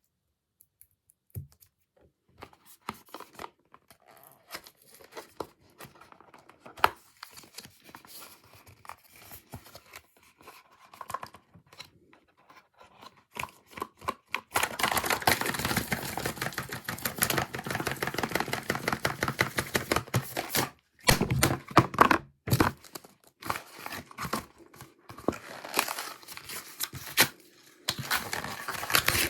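Product packaging being torn open and crinkled by hand. It starts as scattered small rustles and clicks, then about halfway through turns into a dense run of loud tearing and crinkling, broken by a couple of short pauses.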